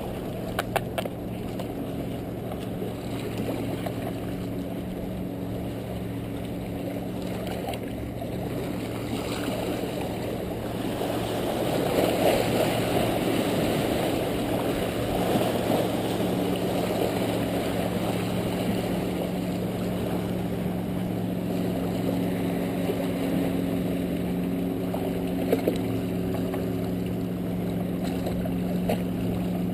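A motorboat engine drones steadily out on the water over small waves washing against the rocks. The wash grows louder about twelve seconds in.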